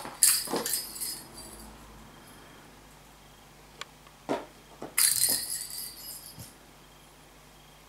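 A kitten's pink toy balls jingle as they are batted and tumble across a hard wooden floor. There is a burst of jingling in the first second, a couple of sharp knocks around four seconds in, and another burst of jingling about five seconds in that lasts about a second.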